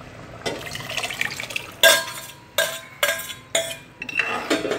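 Steel ladle scooping cooked dal and tipping it into a pot of sambar: soft wet sloshes, then four sharp ringing clinks as the ladle knocks against the metal pot.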